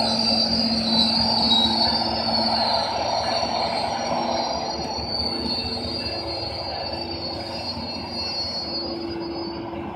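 New Mexico Rail Runner Express commuter train braking into a station: a high, wavering metallic squeal over a low rumble, fading as the train slows and dying away near the end as it comes to a stop.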